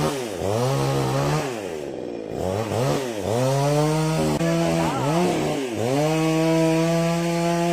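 Chainsaw engine revved up and dropped back several times, then held at high speed from about six seconds in.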